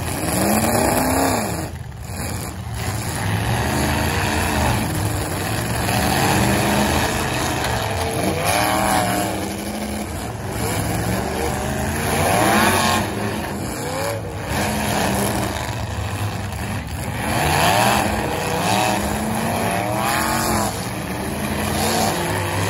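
Full-size demolition derby cars' engines running hard, revving up and down again and again over a steady din of other engines.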